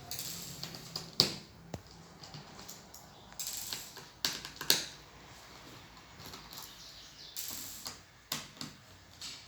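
Irregular sharp clicks and knocks, about a dozen spread out, from small tools and the plastic casing of a laptop being handled and opened.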